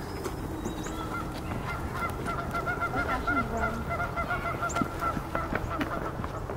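Geese honking in a quick, even run of calls for about four seconds.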